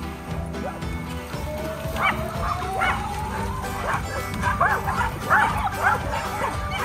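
A pack of excited dogs barking and yipping in quick, overlapping calls, thickening about two seconds in, as they wait for a ball to be thrown into the water, over background music.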